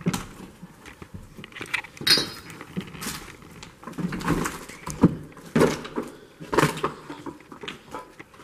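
Footsteps and shifting debris on a littered floor: irregular knocks, scrapes and clatters about once a second, with rustling between them and a brief high squeak about two seconds in.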